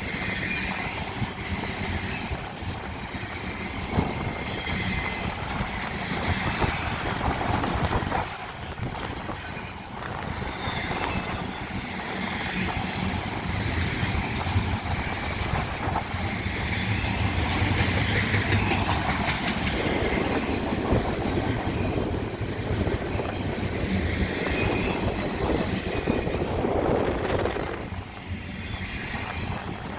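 A BNSF intermodal freight train's cars rolling past: a continuous loud rumble and rattle of wheels on rail, with a thin high wheel squeal twice around the middle.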